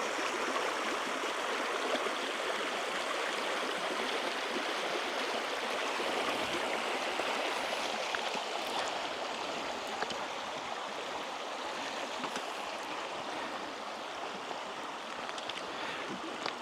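Shallow upland river running over rocks: a steady rushing, babbling wash of water, with a few faint clicks in the second half.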